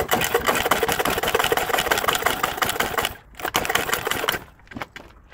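Cheap Chinese scooter engine catching on a kick-start, running raggedly for about three seconds and dying, then firing again for about a second on another kick and cutting out: a hard-starting engine that won't keep running.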